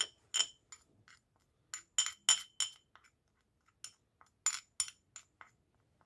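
Metal spoon clinking and scraping against a small ceramic dish while stirring, in irregular groups of sharp, ringing clicks with short pauses between.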